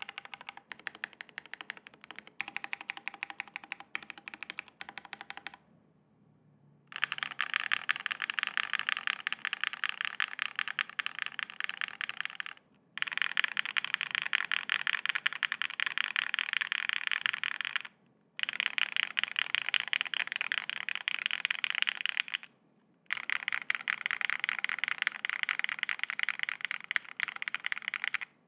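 Rapid typing on a SAAG65 prototype mechanical keyboard with stock Keygeek Raw linear switches, an FR4 plate and PBT keycaps: a dense run of key clacks. It is fainter for the first five seconds or so, then louder in four stretches broken by brief pauses.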